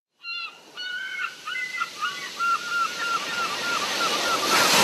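Ocean surf washing in and swelling steadily louder, with a run of short, repeated bird calls over it that fade as the surf builds.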